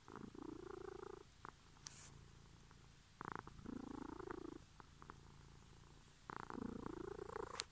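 Domestic cat purring close up, the purr swelling louder three times, about three seconds apart, with a fainter purr in between.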